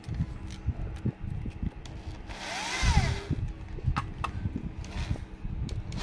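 Corded electric drill with a sandpaper-wrapped rod in its chuck, run briefly about halfway through: the motor whines up and winds back down within about a second. Clicks and knocks from handling the drill come before and after.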